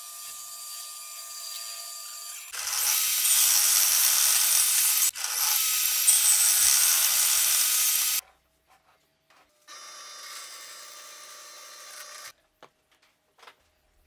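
A drill press boring into plywood with a Forstner bit. After about two and a half seconds it gives way to a louder table saw cutting through a wooden block for about five seconds. After a short pause, the drill press bores a smaller hole with a twist bit for a few seconds.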